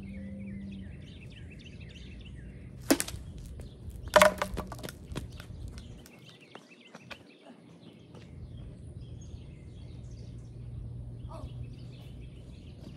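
A plastic wiffle ball bat strikes the ball with one sharp crack, then about a second later the hollow plastic bat is dropped and clatters and bounces several times on the asphalt. Birds chirp in the background.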